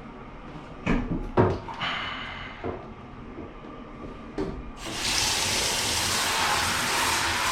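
A few knocks of parts being handled, then water is turned on about two-thirds of the way in and runs with a steady loud hiss.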